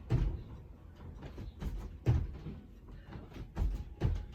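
Dull thuds of feet landing on the floor during a jumping cardio move, about one every two seconds, with fainter knocks between.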